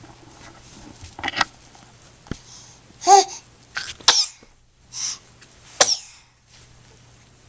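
A run of about six short, sharp sneezes, roughly a second apart, with quiet between them.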